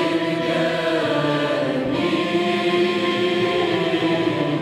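Mixed choir singing a Turkish classical şarkı in makam kürdilihicâzkâr, with sustained melodic lines. A traditional Turkish ensemble of ney, ud, kanun, cello and percussion accompanies them.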